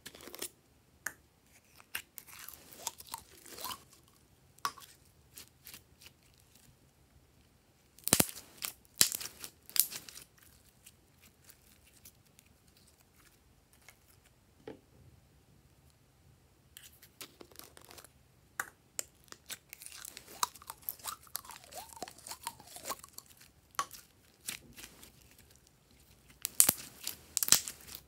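Glossy glitter slime being handled: scooped out of its jar, pressed and stretched by hand, giving bursts of sticky crackling clicks with quieter stretches between.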